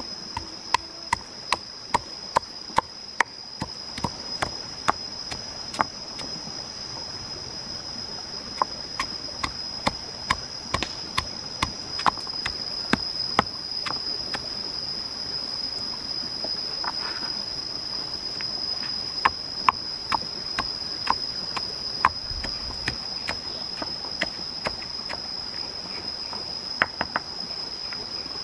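Wooden pestle pounding garlic and red chillies in a stone mortar: sharp knocks in runs of about two a second, with pauses between runs. A steady high insect buzz goes on underneath.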